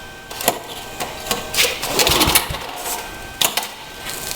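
Troy-Bilt tiller engine being cranked on a cold start without catching: several sharp clicks and rattles, and one longer turnover about halfway through. The choke is set the wrong way.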